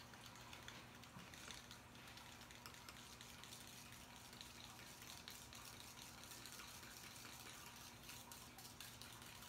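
Faint swishing and scraping of powder hair lightener and developer being combined and stirred in a colour bowl, over a low steady hum.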